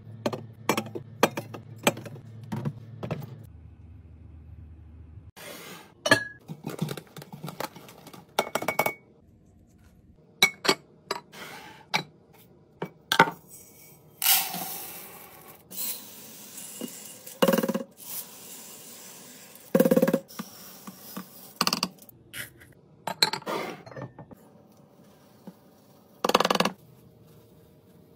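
Glass and plastic containers clinking and knocking as they are set down and arranged while a fridge is restocked. Many short clinks and taps come at irregular intervals, with a few longer rustling or sliding sounds in between.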